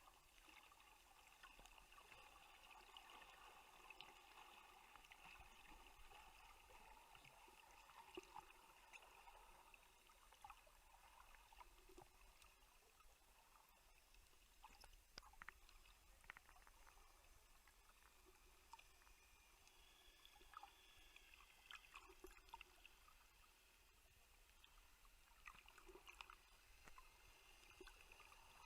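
Near silence: faint underwater ambience, a soft wavering hiss with scattered small clicks.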